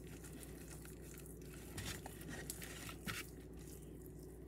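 Faint, soft handling noises of hands rubbing seasoning into a raw beef roast, with a few brief crackles about two to three seconds in, over a steady low hum.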